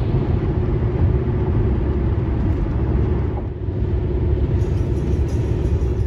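Steady road and engine rumble of a vehicle cruising at highway speed, heard from inside the cabin, dipping briefly a little past halfway.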